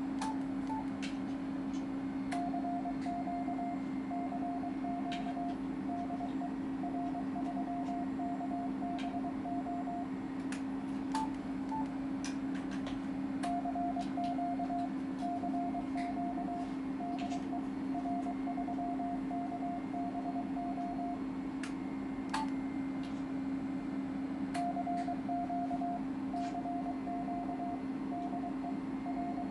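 Morse code (CW) being keyed, heard as the transceiver's beeping sidetone: one steady pitch switched on and off in dots and dashes, in three long runs with short pauses between, over a steady low hum. A few sharp clicks are scattered through it.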